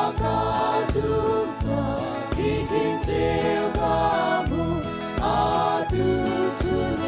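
A worship team of several voices sings a gospel song in Chin together, backed by a band with a drum kit keeping a steady beat of about two strokes a second.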